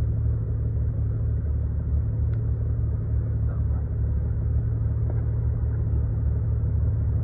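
Segway Villain side-by-side UTV engine running as the machine crawls over a muddy woodland track, heard as a steady low rumble.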